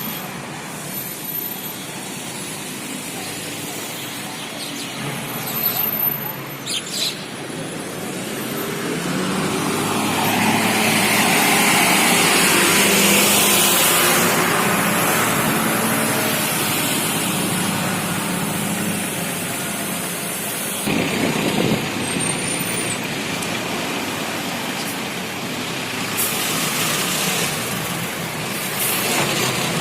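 Road traffic noise, with a vehicle passing loudly about a third of the way in.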